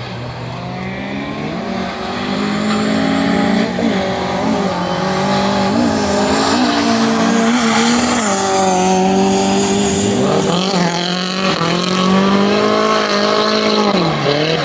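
Drift car's engine revving hard through a corner, pitch rising and falling with repeated throttle blips, with tyres squealing; it grows louder about 2 s in as the car comes closer.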